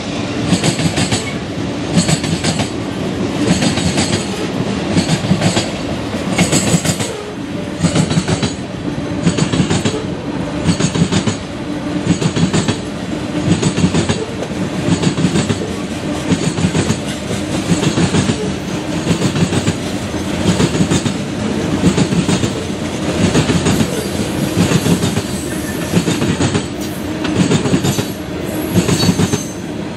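Freight cars of a CSX train rolling past at track side, their wheels clicking over the rail joints in groups that repeat about once a second.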